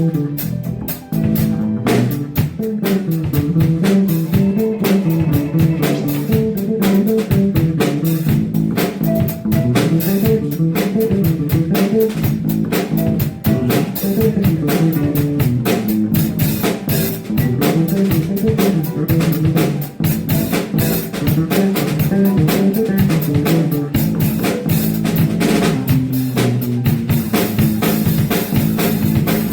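Live blues band playing an instrumental passage: electric guitar and bass over a steady drum-kit beat.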